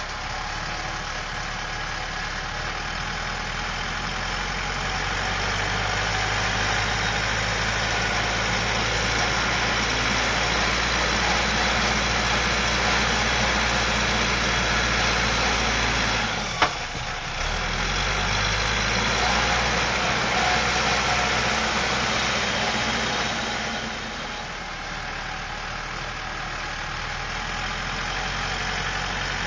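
Caterpillar 416C backhoe's Perkins turbo diesel engine running steadily. Partway through there is one sharp click, with a brief break in the engine note, and near the end the engine gets quieter.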